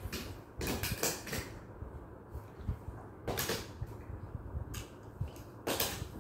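Die-cast toy cars being handled and pushed over a whiteboard: a handful of short knocks and scrapes, several clustered about a second in, one near the middle and one near the end.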